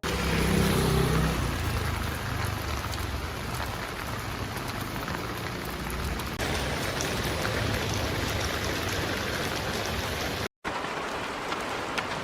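Steady rain falling, with scattered drops ticking on a surface. The sound cuts out for a split second near the end.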